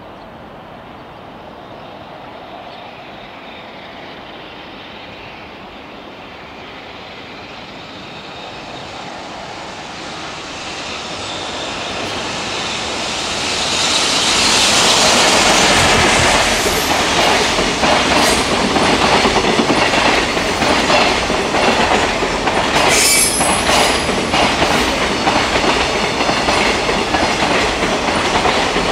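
Container freight train hauled by an EF65 electric locomotive, approaching and growing louder, then passing close with the steady clickety-clack of wagon wheels over rail joints. A brief high wheel squeal comes about two-thirds of the way in.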